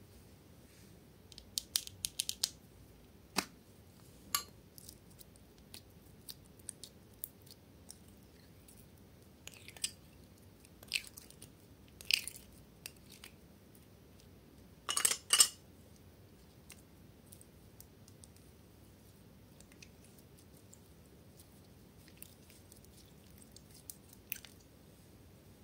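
Pink slime handled by hand and pulled from a small clear plastic tub: short sticky clicks and crackles in scattered bursts, loudest about fifteen seconds in, with quiet stretches between.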